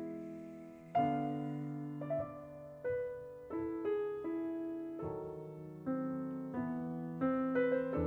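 Background piano music: a slow piece whose notes and chords are struck about once a second and left to die away.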